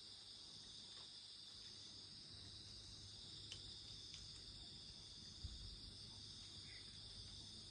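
Crickets chirring steadily in a high, even drone, with a few faint crackling pops from the wood fire and a soft low thump about five and a half seconds in.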